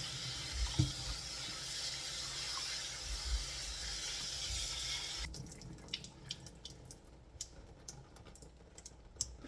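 Kitchen faucet water running over raw chicken as it is rinsed of its vinegar soak. The water shuts off abruptly about five seconds in, leaving a few light clicks and taps.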